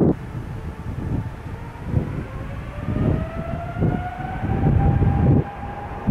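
Aircraft engine whine rising slowly in pitch from about two seconds in, over gusts of wind buffeting the microphone.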